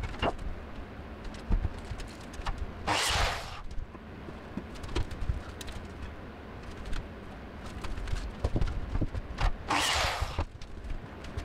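Cordless drill run in two short bursts into a wooden framing batten at the wall, about three seconds in and again near the end, with scattered knocks and taps of the timber being handled and positioned.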